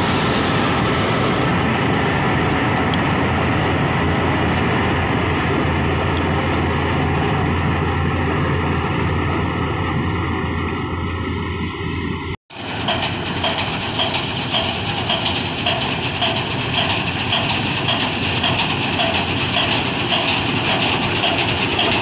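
Swaraj combine harvester running as it cuts rice, a steady engine and threshing drone with a strong low hum. About halfway in the sound cuts out abruptly and returns closer, now with an even, rhythmic mechanical clatter.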